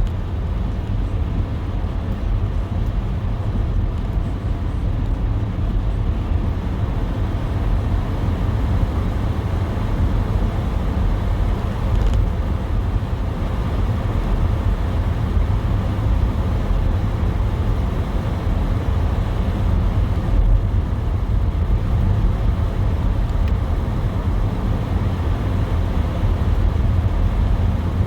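Steady low rumble of a car driving: road and engine noise that holds even throughout.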